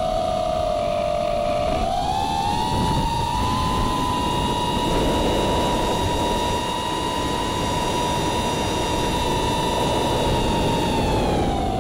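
FPV quadcopter's brushless motors and propellers whining over a steady rush of air. The whine rises in pitch about two seconds in, holds steady, and drops again near the end as the throttle changes.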